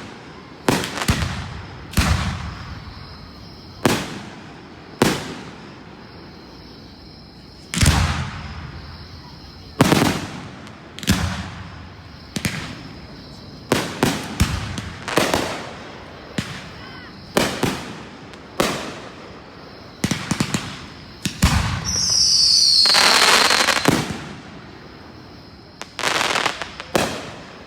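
Aerial fireworks shells bursting one after another, a sharp bang every second or two with a ringing, echoing tail. About four-fifths of the way through, a dense crackle with whistles falling in pitch runs for about two seconds.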